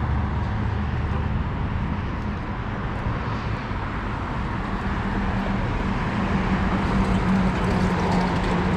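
Steady road traffic noise from a busy street, a continuous low rumble of passing cars.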